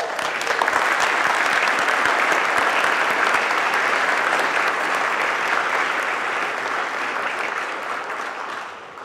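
Audience applauding steadily at the end of a dance performance, fading away near the end.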